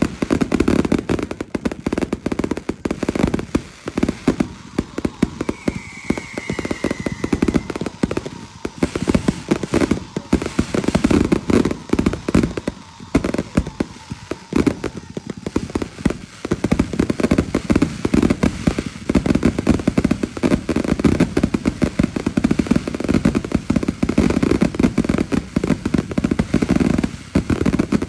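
Fireworks going off in a continuous rapid string of pops and crackles, with a short falling whistle about six seconds in.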